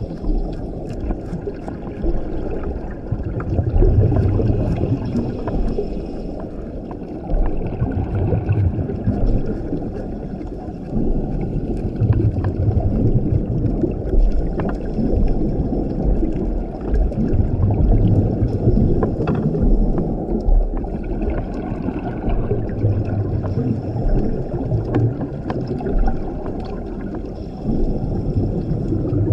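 Scuba regulator breathing underwater: exhaled bubbles rush out in louder swells every few seconds between quieter inhalations. Faint scattered clicks of the reef run underneath.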